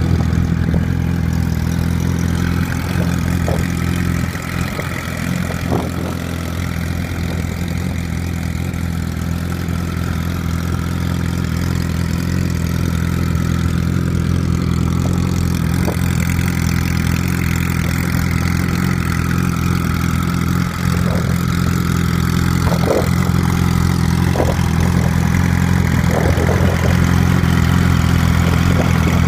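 2006 Yamaha R1's inline-four engine idling steadily just after being started.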